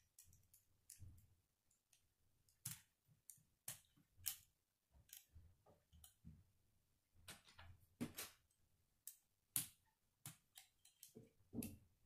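Plastic K'nex rods and connectors clicking and snapping together as they are handled and assembled, a run of irregular sharp clicks a second or so apart.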